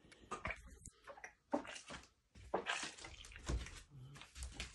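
A sick cat retching, a series of irregular wet heaves and splashes as it brings up liquid. It is trying to vomit out something it ate, which the owner takes for poisoning.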